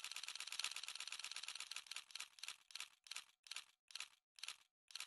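A rapid, even run of mechanical clicks that slows down steadily, from a fast rattle to about two clicks a second near the end, like a mechanism winding down.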